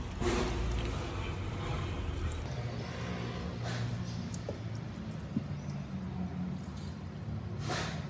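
Water sloshing and splashing from a stainless steel bowl in three short bursts, over a steady low hum.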